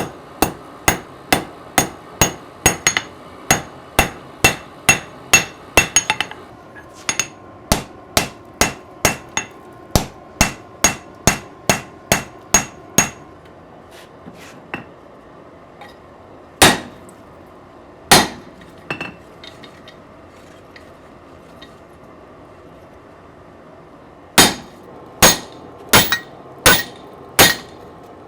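Hand hammer forging a hot steel knife blade on an anvil: steady, ringing blows at about two a second. Midway the hammering stops for several seconds, broken by only a couple of single blows, and then starts again near the end.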